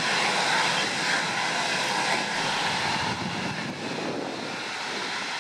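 Saab JAS 39 Gripen jet engine running at low power while the fighter taxis away on the road. A steady whine sits over a rushing hiss, and it turns a little quieter about three seconds in.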